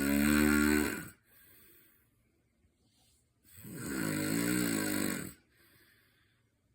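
A person snoring after drinking alcohol. One snore ends about a second in, and a second, longer snore with a wavering pitch comes about three and a half seconds in. Each is followed by a fainter trailing sound.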